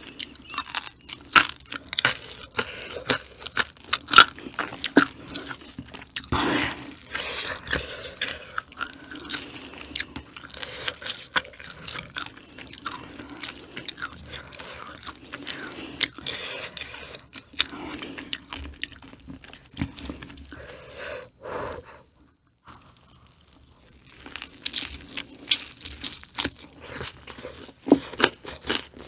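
Close-miked crunching and chewing of food, a dense run of sharp crunches with a short pause about three-quarters of the way through.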